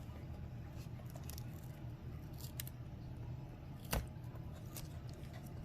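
Small clicks and crackles of adhesive tape being peeled loose from a laptop's display cable connector, with one sharper click about four seconds in, over a steady low hum.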